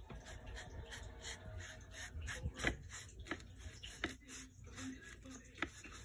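A paintbrush scrubbing and dragging across textured canvas in short, irregular strokes, each stroke a brief scratchy brushing sound.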